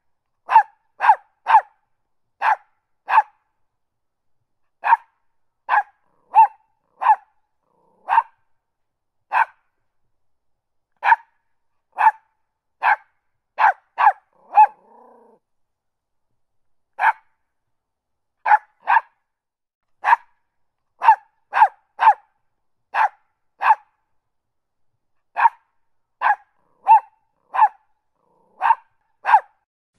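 A dog barking repeatedly in short, sharp barks, some single and some in quick pairs, spaced roughly a second apart with a few pauses of a second or two.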